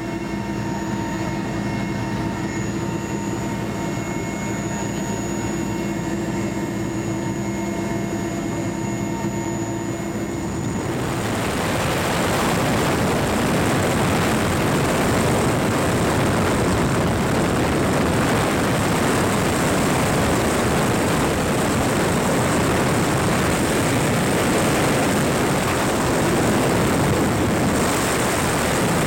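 Mil Mi-8 helicopter in flight, heard from inside, with the steady whine of its twin turboshaft engines and transmission in several held tones. About eleven seconds in, the sound changes to a louder, even rushing noise.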